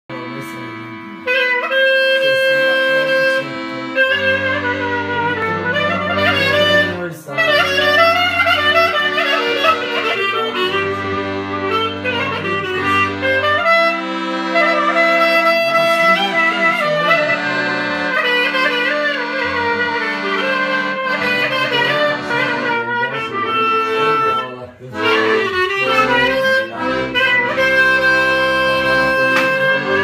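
Clarinet playing an ornamented Balkan kyuchek melody over piano-accordion chords and sustained bass notes, with two brief breaks between phrases.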